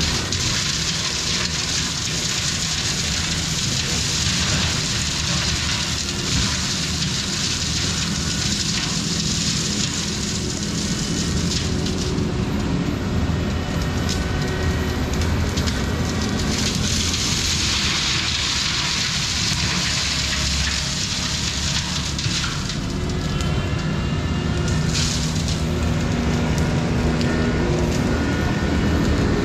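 Kubota SVL95-2S compact track loader's diesel engine running steadily under load while a GyroTrac 500HF forestry mulching head shreds brush and wood, with a dense hiss and many short crackles of chips and debris.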